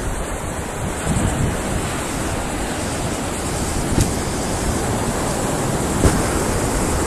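Surf breaking and washing up a beach, with wind blowing across the microphone.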